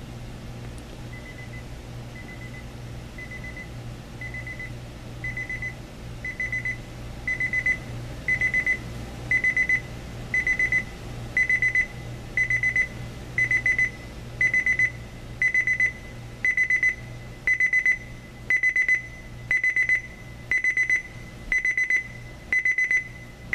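Homedics SoundSpa clock radio's beep alarm going off: short clusters of rapid high beeps about once a second, starting faint and getting louder over the first several seconds, then holding at full volume: the ascending beep alarm setting.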